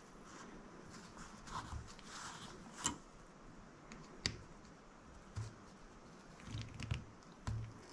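Faint, scattered clicks and light taps of tweezers and a pen-style soldering iron working at a drone's flight controller board, with a few soft low thumps; the sharpest clicks come about three and four seconds in.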